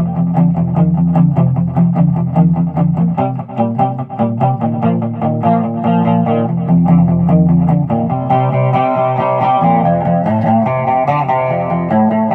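Gretsch Rose Falcon electric guitar playing a fast boogie: a driving, evenly picked pattern over a low bass line. About eight seconds in, higher lead notes join on top.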